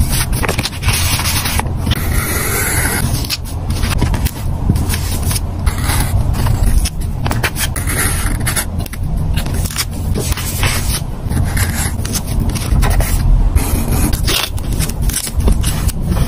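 Close-up paper-craft sounds: pages handled and pressed flat, then a pen-style craft knife scratching into a sticker sheet as it cuts out stickers, in many short, quick scrapes.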